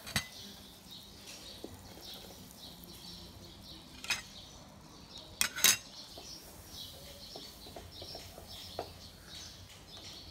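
Kitchen utensils clinking and knocking against a cooking pot and dishes: a few sharp clinks, the loudest a quick pair about five and a half seconds in, with smaller taps after.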